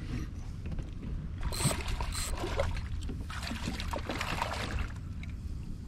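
Scattered splashing and knocking in and around a kayak, over a low steady rumble.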